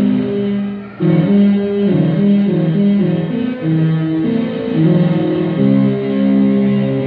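Global 201 electronic keyboard playing a melody in a guitar-like voice, the notes moving in steps. The sound dips briefly about a second in, then carries on.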